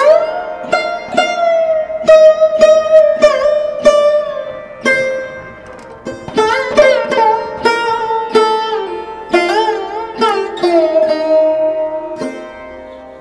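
Instrumental background music: a plucked string melody with sliding, bending notes over a steady drone.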